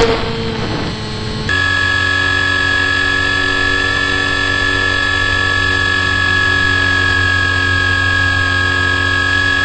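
Model seaplane's motor and propeller, heard through a camera on board, running at a steady speed while the model taxis on water. It holds one steady pitch after an abrupt change about a second and a half in.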